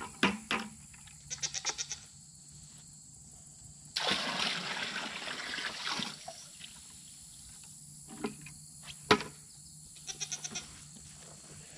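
Water poured from a plastic bucket splashing into a galvanized steel stock tank for about two seconds midway. Goats bleat a few times in short quavering calls, and there are several sharp knocks, the loudest near the end.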